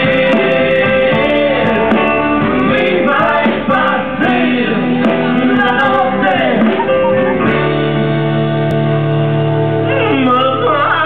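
Music with singing over guitar; a steady low sustained note enters about two-thirds of the way through, with a wavering voice line above it near the end.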